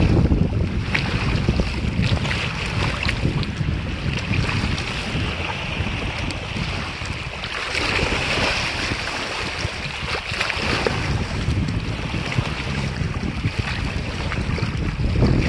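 Wind buffeting the microphone and lake waves lapping against shoreline rocks, with a hooked fish splashing at the surface around the middle.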